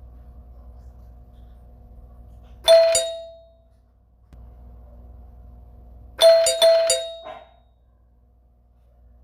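Doorbell chime ringing: one struck ding about three seconds in, then three or four quick strikes in a row about six seconds in, each ringing out. A faint steady hum runs between the rings.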